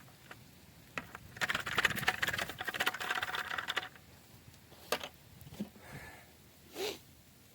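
Soil tipping out of a plastic five-gallon potato bucket, a dense gritty rattle lasting about two and a half seconds, followed by a few scattered knocks and rustles.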